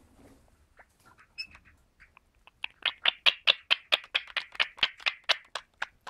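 Indian ringneck parakeet tapping its beak against a small compact mirror: a few scattered soft taps, then a fast run of sharp, loud clicks, about five a second, lasting about three seconds.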